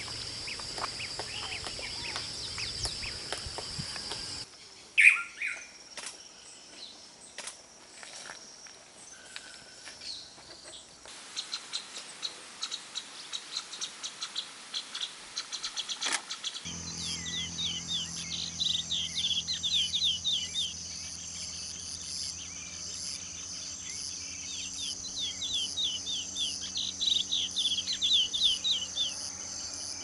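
Wild birds calling and chirping over a steady high-pitched insect drone, in several spliced field-recording segments. There is one loud call about five seconds in, and in the second half a bird gives repeated quick series of chirps.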